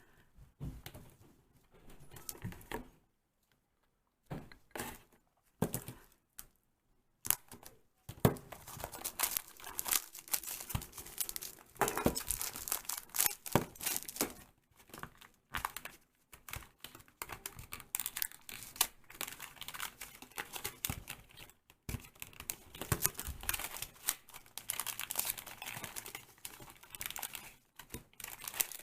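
Plastic blind-pack packaging being torn open by hand and crinkled. There are scattered crackles with pauses at first, then steady, busy crinkling and tearing from about a quarter of the way in.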